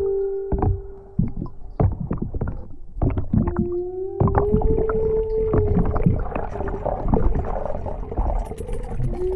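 A long synthesizer tone slides up slightly, holds for about three seconds, and comes back every few seconds, layered over an underwater hydrophone recording of irregular knocks and clicks. A dense crackle builds in the second half.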